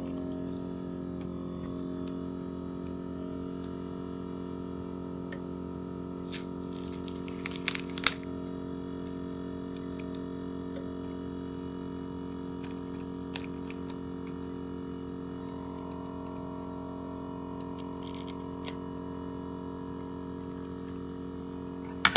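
Built-in vacuum pump of an LCD frame separator machine running with a steady hum. Over it come a few crackles and snaps as a phone frame is slowly pried off the screen assembly: a cluster about seven seconds in, a few more later, and a sharp click near the end.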